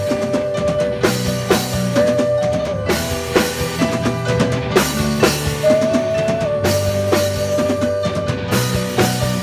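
Live rock band playing: a drum kit keeps a steady beat with bass drum and snare hits under held, sometimes sliding instrument notes, in a rough-sounding recording.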